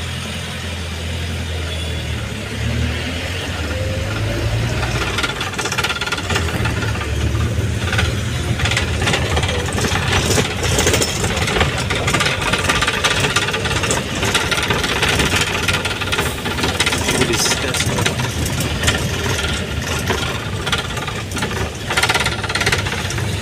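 A vehicle engine running, with rattling, while the vehicle is on the move. It starts as a steady low hum and grows louder and noisier about five seconds in.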